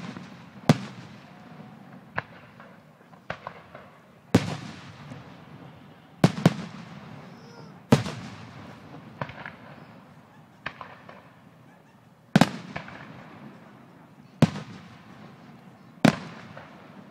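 Fireworks going off one after another, a sharp bang every second or two, each trailing off as it echoes away.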